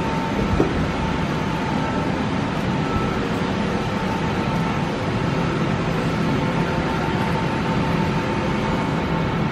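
Steady machinery hum with a faint high tone running through it, and a single short knock about half a second in.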